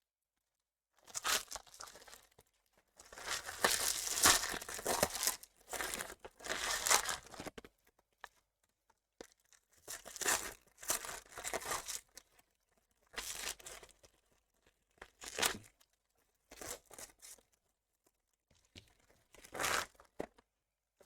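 Trading card box and pack wrappers being torn open and crinkled by hand, in a string of bursts with near-silent gaps between them.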